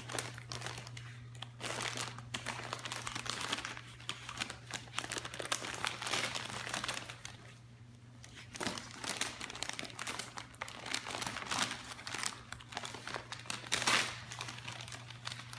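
Wrapping paper crinkling and tearing as a wire fox terrier tugs and chews at a wrapped present, in irregular bursts with a short lull about halfway through.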